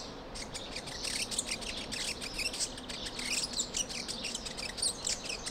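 Birds chirping and twittering in bush: many short, high chirps overlapping throughout.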